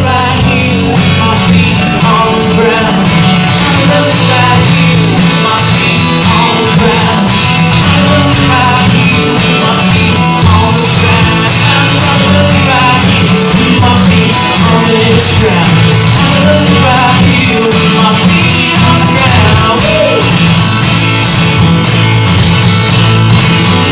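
Live solo acoustic guitar strummed steadily, with a man singing over it, amplified through a stage PA.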